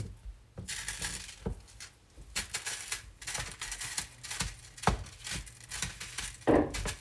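Meat chopper tool working through raw ground sausage in a skillet: irregular clicks, taps and scrapes as it strikes the pan and breaks up the meat.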